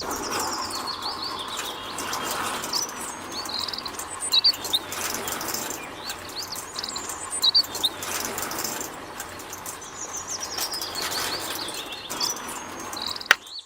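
Small birds chirping repeatedly over a steady background noise.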